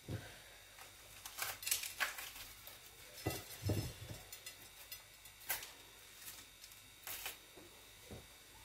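Soft, scattered knocks and rustles of red bell pepper (tatashe) pieces being handled and dropped into a plastic blender jar full of chopped tomatoes.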